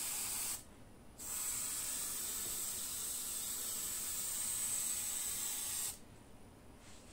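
Gravity-feed airbrush spraying paint: a short hiss of air and paint, a break of about half a second, then a long steady hiss of about four and a half seconds that cuts off sharply.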